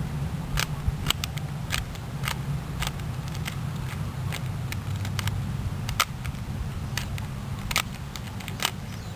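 A plastic Rubik's Cube being turned by hand: a string of sharp, irregular clicks, roughly one or two a second, as the layers are twisted. Under them runs a steady low background hum.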